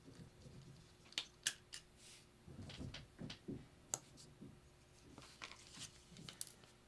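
Faint scattered clicks and light taps of a small screwdriver and tiny screws being worked in an opened iPhone 6, with soft handling rustle between them.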